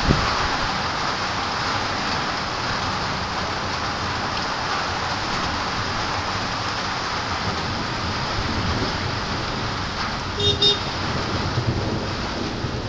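Heavy rain pouring down steadily, a dense even hiss. About ten and a half seconds in, a brief high-pitched tone sounds over it.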